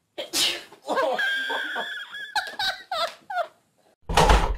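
A person sneezes once, followed by a couple of seconds of laughing, squealing voices. A heavy thump comes near the end.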